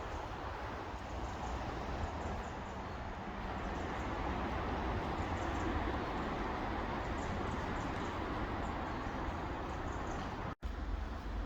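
Steady outdoor background noise: an even rushing hiss with a low rumble underneath, growing a little louder about four seconds in and cutting out for an instant near the end.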